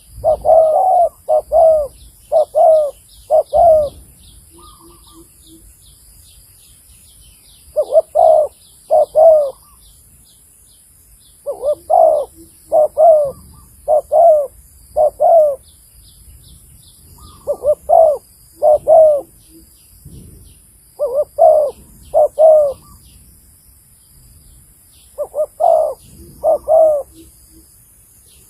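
Spotted dove cooing loudly in phrases of two to five notes, a phrase every few seconds with pauses between, some phrases trailed by soft low notes.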